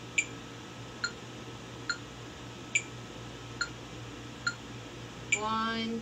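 Metronome app on a phone clicking steadily at about 70 beats a minute, with a higher accented click on every third beat. Near the end, upright piano notes begin.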